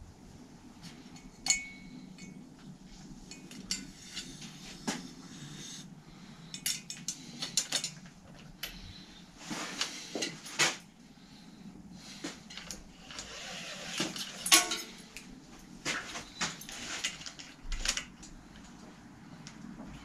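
Irregular metallic clicks, clinks and light knocks of small tools and bicycle parts being handled during cable work on a bike in a repair stand, a few of them ringing briefly.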